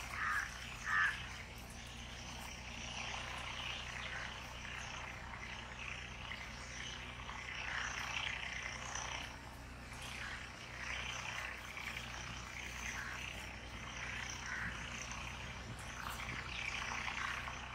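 Rural outdoor ambience: a steady chorus of small calling animals, with two short louder calls about a second in and a low steady hum underneath.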